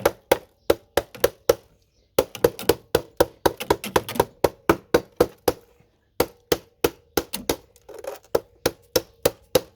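Hammer striking RAM slots on a scrap computer motherboard to knock them off, a fast run of sharp blows about three to four a second with a short metallic ring. The blows pause briefly about two seconds in and again about six seconds in.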